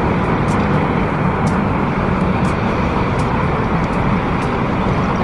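Concrete mixer truck running steadily, its engine driving the turning drum as concrete is discharged down the chute.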